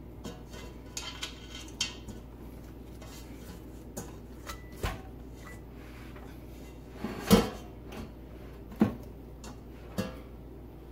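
Stainless-steel stand-mixer bowl knocking and clinking against a glass bowl and the countertop as dough is pulled out of it by hand: a string of separate knocks, the loudest about seven seconds in and another about nine seconds in.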